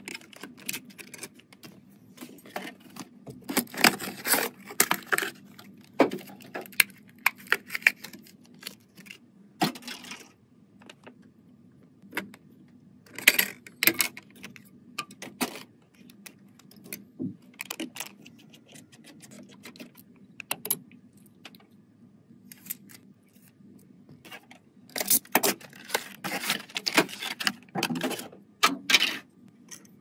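Sharp clicks, taps and crinkles of a Mini-ITX motherboard and its anti-static bag being handled as the CPU socket is opened and an Intel processor is fitted. They come in irregular clusters and are busiest near the end.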